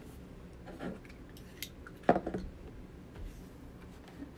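Scattered light clicks and taps of small hard objects being handled on a tabletop, with one sharp click about two seconds in.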